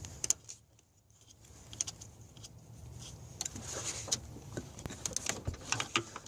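Scattered small metallic clicks and clinks of hand tools and parts being worked loose in a truck's engine bay, with one sharper click near the start.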